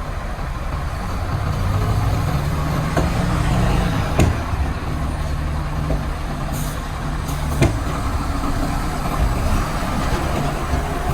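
Heavy diesel dump truck engine running with a steady low drone that builds up over the first few seconds. Two sharp knocks come about four and seven and a half seconds in, with short hisses of air between them.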